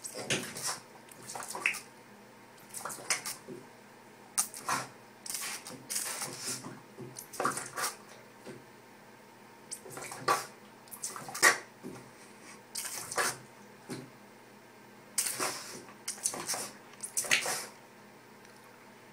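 A squirt bottle spraying in short squirts, roughly one every second or two, while a dog snaps and bites at the jets of water.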